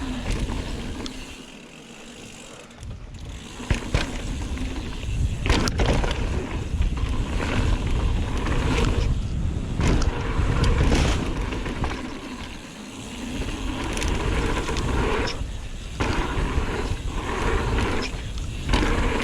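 Mountain bike riding down a dirt trail: a steady rumble of tyres rolling over dirt, with frequent sharp clattering knocks of the bike over bumps. It goes quieter briefly near the start and again about two-thirds of the way through.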